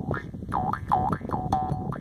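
Jaw harp played with steady finger plucks over its drone, the mouth shaping the overtones into quick wah-like sweeps that dip and rise about three times a second.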